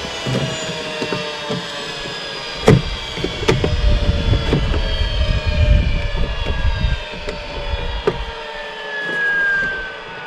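Vinyl soffit panels knocking and clicking as they are handled and pushed into the trim under an eave, with a sharp knock a few seconds in. Behind them runs a droning hum whose several tones slowly fall in pitch, swelling near the end.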